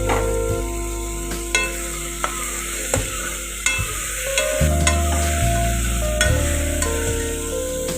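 Chicken gravy sizzling in a pan while it is stirred, with the spoon clicking against the pan every second or so. Background music plays over it.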